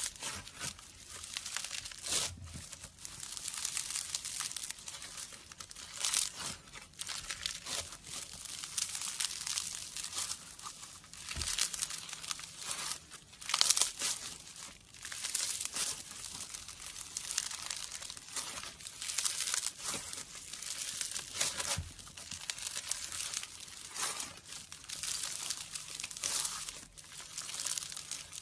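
Blue foam-bead slime (floam) being squeezed, kneaded and pulled apart by hand, crackling and crunching in repeated irregular bursts as the beads rub and break apart, with one louder crunch about halfway through.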